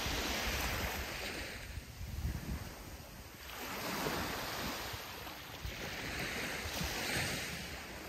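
Sea waves breaking and washing up a sandy beach. The surf hiss swells and fades three times, about every three seconds.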